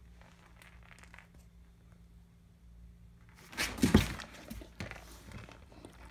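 A loud thump with rustling about three and a half seconds in as the Akita puppy lunges onto the rubber ball, followed by softer rustles and clicks as she mouths it.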